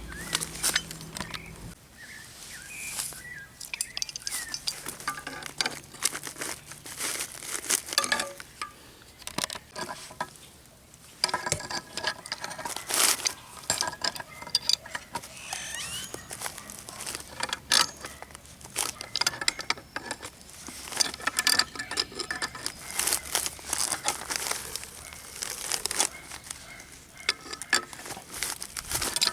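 Irregular metallic knocks, taps and clinks from hammering a punch or screwdriver against a VW Pointer's rear wheel bearing race to drive it out of the hub.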